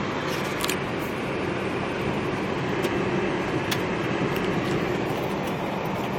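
Vehicle driving slowly, a steady engine and road noise with a low hum, with a few light sharp ticks scattered through it.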